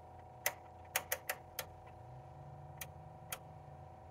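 Oscilloscope volts-per-division rotary switch clicking through its detents as it is turned to a more sensitive range: about seven sharp clicks at uneven spacing, several close together in the first half. A faint steady hum sits underneath.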